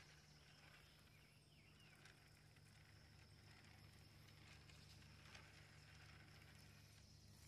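Near silence: a faint steady low hum with a faint steady high-pitched tone above it and a few faint ticks.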